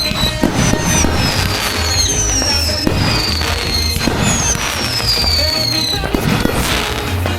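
Fireworks going off in a pyromusical show, with scattered cracks and repeated long whistles that fall in pitch, over music with a steady beat.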